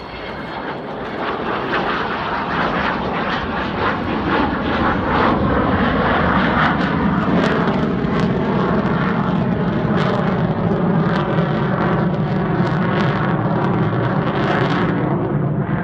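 Avro Vulcan XH558 jet bomber flying past, its four Rolls-Royce Olympus turbojets building in loudness over the first few seconds, then holding loud and steady as it passes overhead and climbs away.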